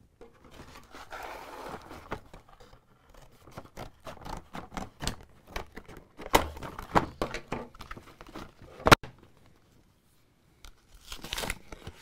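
Plastic blister packaging and its paper backing being torn and crinkled by hand, a run of crackles and snaps, the loudest a single sharp snap about nine seconds in.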